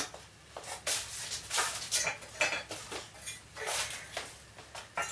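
Irregular light clinks and knocks of hard objects being handled, one or two a second.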